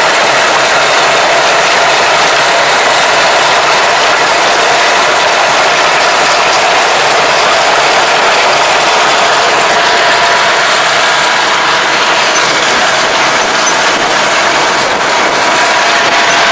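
Tractor-driven rotary ridger and plastic-mulch layer working through soil, giving a steady, loud mechanical noise from the rotary's gears and tines.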